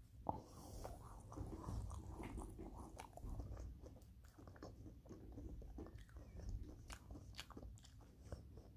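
A person chewing a sugar-coated marshmallow Peeps chick close to the microphone: soft, irregular wet mouth clicks and smacks, with one sharper click about a third of a second in.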